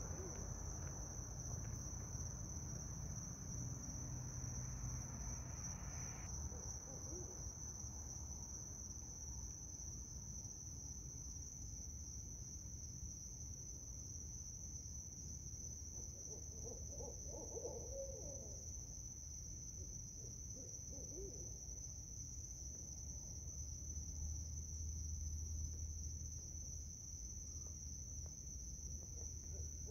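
Barred owls hooting, with faint, wavering bursts of calls. The clearest come about halfway through and again near the end, over a steady high-pitched drone.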